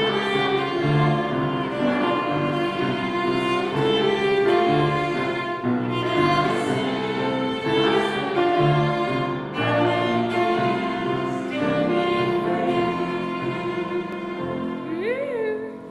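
Cello and piano playing a slow song tune, with long bowed cello notes over piano chords. The music dies away near the end.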